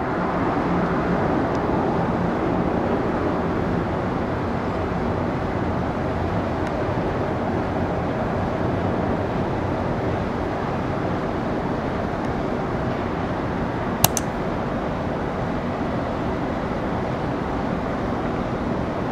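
Steady rumble of jet airliner engines, with one sharp click about fourteen seconds in.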